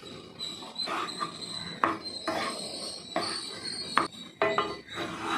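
A metal spatula or spoon scraping and clinking against cookware as the egg rice is stirred or served, with a few sharp knocks.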